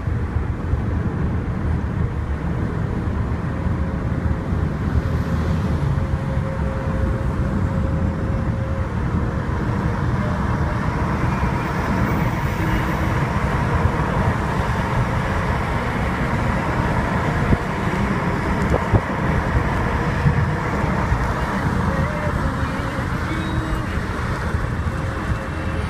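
Steady road noise of a moving motor vehicle on the highway: the engine and tyres make a constant low drone, with a faint steady whine coming and going.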